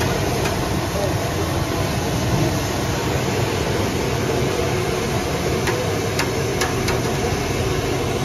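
Steady street noise of a busy market, with a low rumble, and a few sharp clicks in the second half.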